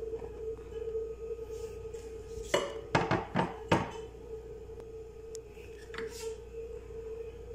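A quick cluster of about five hard knocks within a second and a half, then a lighter click, as a blender jar is tapped against a plastic tub to shake out flour. A steady hum runs underneath.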